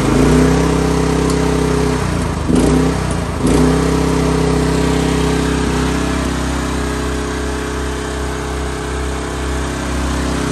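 Gasoline Briggs & Stratton engine of an AGT QH12 mini excavator running steadily after starting. Its speed dips and recovers twice, about two and a half and three and a half seconds in, then holds even.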